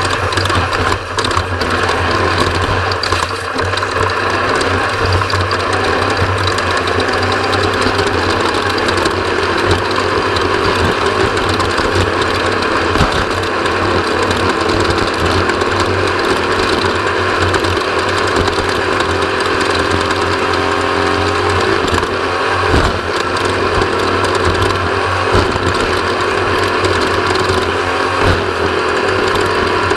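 Off-road race vehicle heard from onboard: the engine runs steadily under a dense, continuous clatter of rattling parts, with a brief dip in level about three-quarters of the way through.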